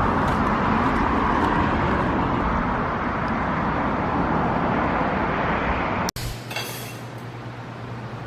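Steady rushing noise that cuts off abruptly about six seconds in, giving way to a quieter background with a low steady hum and faint clinks of dishes or glass.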